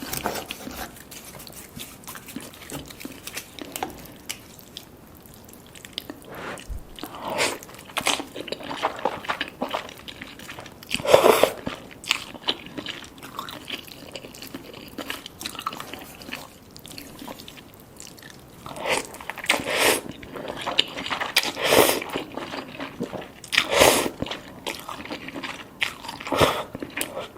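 Close-up eating sounds: chewing and biting into cheesy spicy Korean noodles and soft-boiled eggs, in irregular bursts with quieter gaps, the loudest about a third of the way in and several more near the end.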